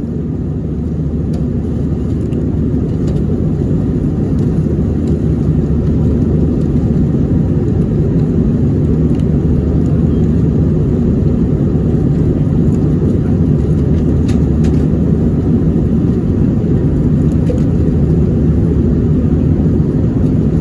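Steady low rumble of an airliner cabin in flight: engine and airflow noise heard from inside the plane.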